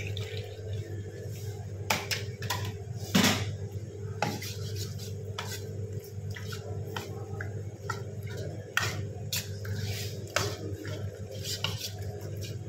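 Metal ladle knocking and scraping against a steel wok at an irregular pace as penne is stirred into thick tomato sauce, the loudest clank about three seconds in, over a steady low hum.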